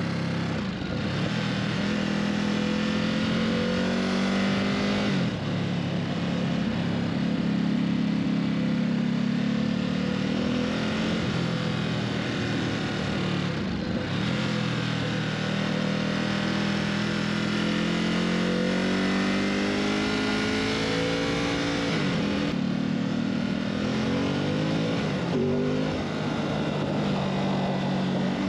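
Ducati SuperSport's V-twin engine running under way, its pitch rising and falling with the throttle over several seconds at a time, with a few brief breaks where it changes.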